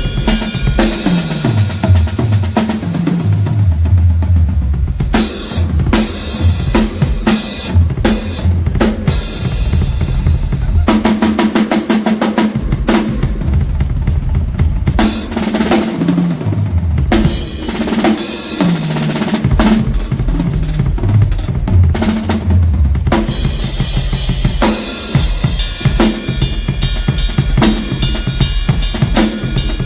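Drum kit played during a sound check, with bass drum, snare and cymbals. Several fills step down in pitch across the toms.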